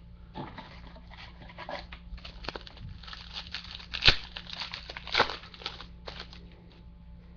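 Trading-card pack wrapper crinkling and baseball cards being handled and shuffled, an irregular rustle with small clicks and two sharper snaps about four and five seconds in.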